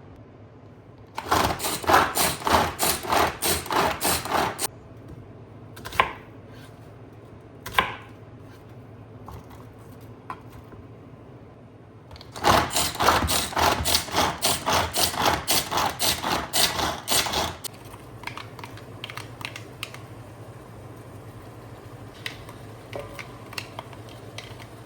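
A knife chopping food on a cutting board in two quick, even runs of strikes, about four or five a second, with a few single knocks between them.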